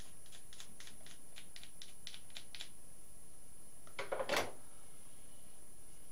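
A pencil with a blunted tip being sharpened in a small hand sharpener: a run of about ten quick scraping clicks, around four a second, then a louder brief rustle about four seconds in.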